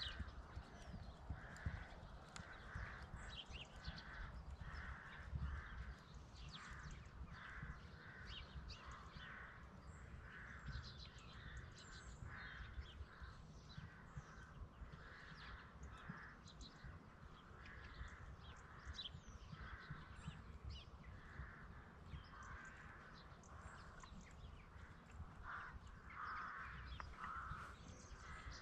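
Faint, repeated cawing of crows, call after call at a fairly even pace, over a steady low rumble.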